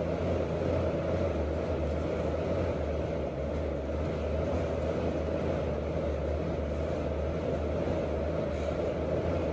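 Fan-resistance stair-climber exercise machine being stepped at a steady pace: its air-fan flywheel gives a continuous, even whir with a low hum underneath.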